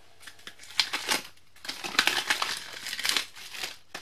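Paper cards and packaging rustling and crinkling as a hand sorts through a cardboard shipping box, in irregular bursts that are loudest about a second in and again between two and three seconds.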